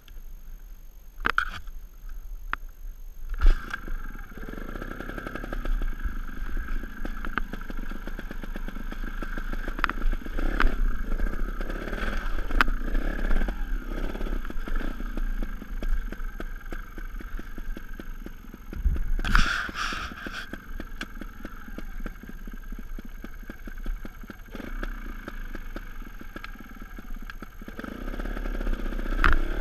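Sherco 290 ST trials motorcycle's two-stroke single-cylinder engine running, its pitch rising and falling as the throttle is worked. A few sharp knocks in the first few seconds, and scattered clatter and clicks throughout.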